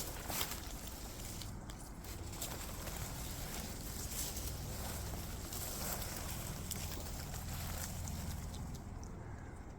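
Footsteps and the crackling rustle of branches and dry leaves as someone pushes slowly through thick undergrowth, with a steady low rumble underneath.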